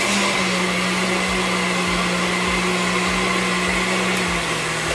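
Countertop blender running steadily, puréeing canned apricots: an even whirring with a steady motor hum. The motor's pitch dips slightly near the end.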